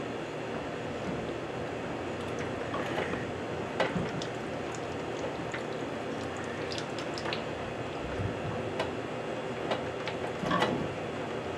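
Tubing cutter being cranked around copper pipe: a steady metallic grinding with scattered clicks and scrapes as the wheel is tightened and turned, while leftover water dribbles from the line.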